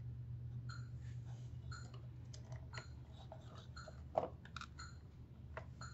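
Small clicks and taps of plastic cable connectors and circuit board parts being handled and pressed back into place inside an open syringe pump's plastic casing, with one sharper click about four seconds in. A steady low hum runs underneath.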